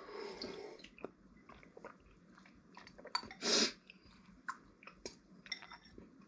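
People eating instant noodles: wet chewing with small mouth smacks and clicks, and one short louder noise about three and a half seconds in.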